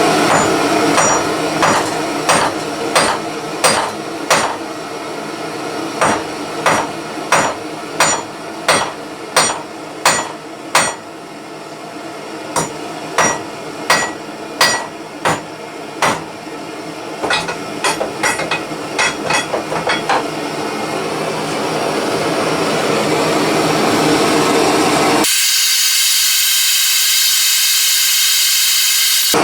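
Ball-peen hammer striking heated rebar in a long run of blows, about one to two a second, over the steady hiss of a blow lamp. The blows stop around twenty seconds in, and near the end a high hiss takes over suddenly.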